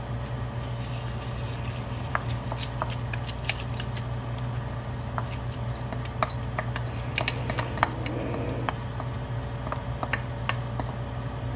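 Wooden spoon scraping and tapping rice out of a bowl into a steel pot of boiling broth. Many small irregular clicks sound over a steady low hum.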